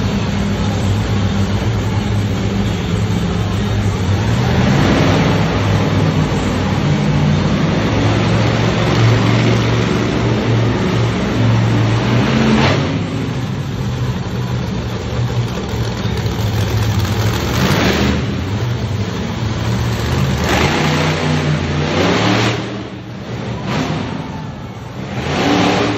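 Monster truck engine running loud and revving, surging up and down in repeated bursts, with the surges strongest in the last few seconds.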